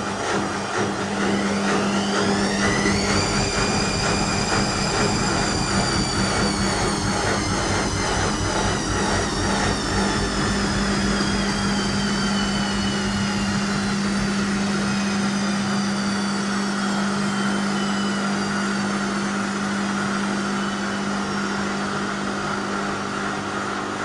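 Whirlpool front-loading washing machine running: its drum motor whines up in pitch over a few seconds, then slowly winds back down over the next fifteen seconds or so, over a steady hum. This is a machine with a spin fault, its drum not holding a proper spin.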